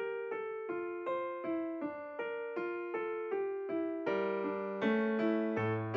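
Background music: a piano playing a gentle melody of evenly spaced notes, about three a second, with lower notes joining about four seconds in.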